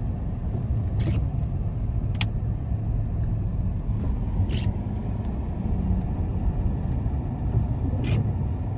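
Road noise inside a moving car's cabin on wet pavement: a steady low rumble of engine and tyres, with four short, sharp ticks spread through it.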